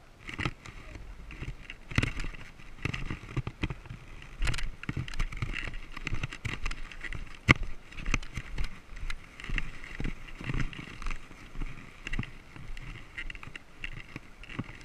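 Bicycle rolling over cracked, bumpy pavement, with the bike and its mounted camera rattling and knocking irregularly over the bumps above a steady rolling hiss. It starts abruptly as the bike moves off.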